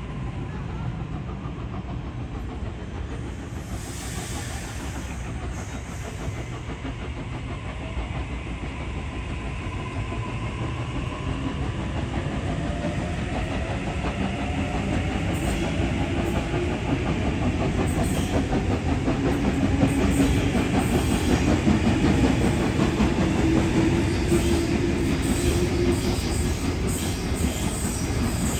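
A train running along the track: a steady rumble that grows gradually louder, with faint whining tones from the wheels coming and going in the second half.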